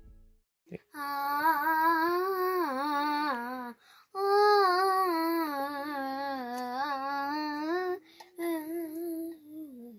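A child's voice singing a slow, unaccompanied melody in three phrases, with short breaks about four and eight seconds in.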